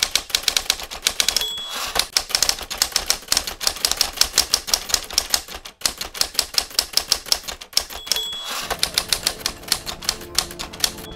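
Typewriter typing rapidly, keys clacking in a quick run, with a short bell ding about a second and a half in and again about eight seconds in, each followed by a brief pause before the typing resumes.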